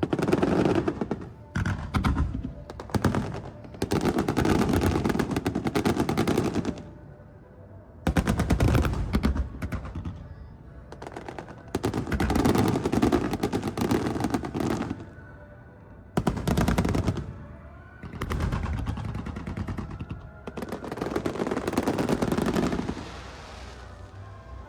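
Fireworks barrage: rapid volleys of shell bursts and crackle that come in waves of one to three seconds, with short lulls between them.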